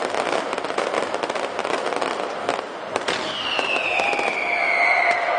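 Fireworks exploding overhead: a dense crackling of crackle stars with many sharp pops. About three seconds in, a long whistle starts and falls slowly in pitch.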